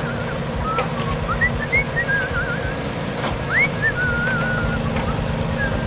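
Whistling: several short upward-sliding notes and wavering held tones, with a steady low rumble underneath.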